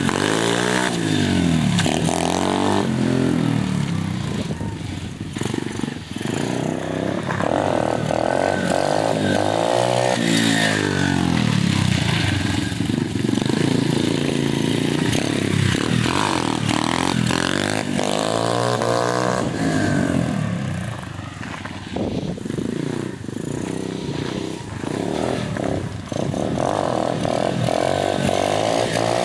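Apollo 125cc pit bike's single-cylinder four-stroke engine revving hard and falling back again and again as the rider pops wheelies, its pitch climbing and dropping with the throttle. It is quieter for a few seconds a little past two-thirds of the way through.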